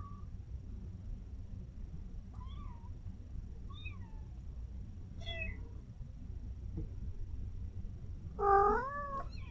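Kittens mewing: several faint, short, high-pitched mews spaced a second or so apart, then one much louder, longer meow near the end.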